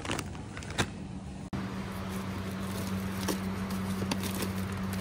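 A plastic bag of frozen food crinkling in the hand, a few sharp crackles, then, after a sudden cut, a steady low machine hum with occasional light rustles of packaging.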